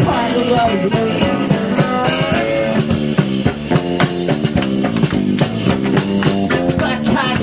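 Live rock band playing loudly: electric guitars over a drum kit keeping a steady beat, with no singing.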